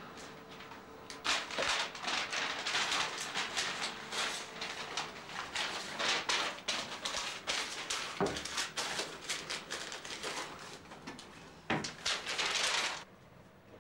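Sheets of paper rustling and being shuffled, with a couple of dull thumps and a dense burst of handling near the end. A faint steady machine hum fades out in the first few seconds.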